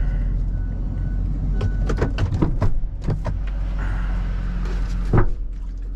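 Vehicle engine running steadily with a low hum, with a quick series of clicks and knocks about two seconds in and one louder knock near the end.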